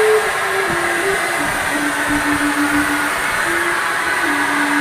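TOTAL handheld electric paint spray gun's blower motor running with a steady rush of air and a whine whose pitch drops shortly after the start and shifts a couple more times while it sprays.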